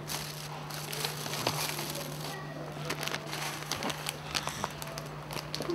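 Plastic snack packet crinkling and crackling as it is handled, a scatter of small irregular crackles over a steady low hum.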